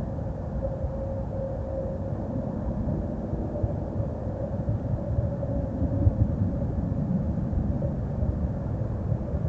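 Steady low rumble with a faint steady hum through it.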